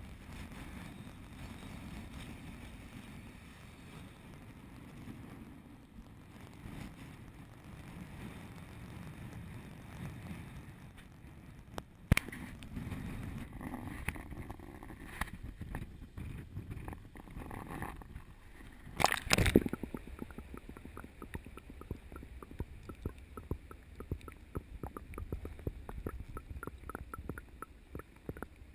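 Low wind and surf rumble on the microphone, then water sloshing and a loud splash as the camera is dipped into the sea, followed by a steady underwater crackle of many fine ticks.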